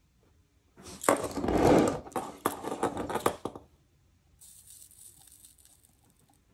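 An HO-scale locomotive chassis is scraped and knocked about on a wooden tabletop for about three seconds as it is turned around, a dense run of scrapes and clicks. Then a faint high sizzle comes as the soldering iron's tip works the fluxed joint on the rear truck.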